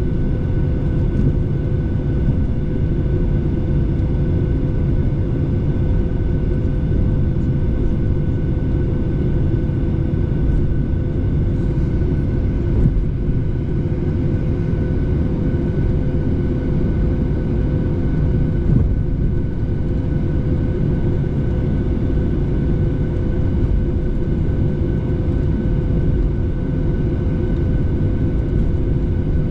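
Steady cabin noise of a passenger airliner, with the even rush of the engines and airflow and a constant hum running through it.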